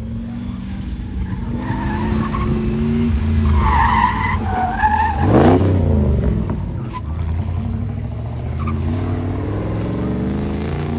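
Car on an autocross course, engine revving up and down through the gears, with tyres squealing about four seconds in. About five and a half seconds in it sweeps past close by, its pitch dropping sharply, the loudest moment.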